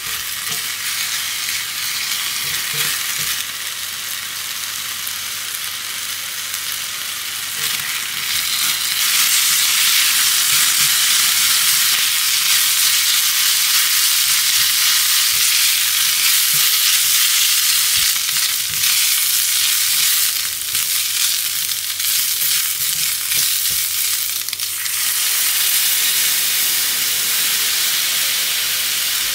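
Diced beef sizzling and frying in a small cast-iron pot while being stirred with a silicone spatula. The sizzle grows louder about eight seconds in. Near the end, water goes into the hot pot and the sizzle turns to a hissing boil.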